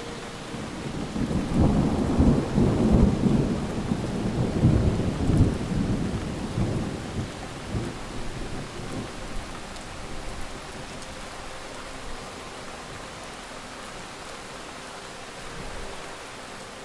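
A deep, irregular rumble that swells about a second in, is loudest for a few seconds, and dies away by about nine seconds, over a steady faint hiss.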